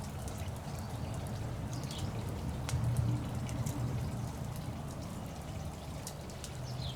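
Wood campfire crackling, with scattered small pops over a steady hiss.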